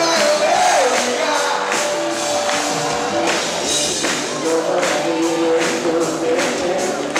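Live worship band playing a song with a steady beat of drums and cymbals, under held, gliding sung notes.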